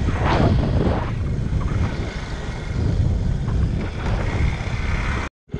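Honda C90's small single-cylinder four-stroke engine running as the bike rides along a dirt track, mixed with rough wind rumble on the microphone. The sound cuts off abruptly near the end.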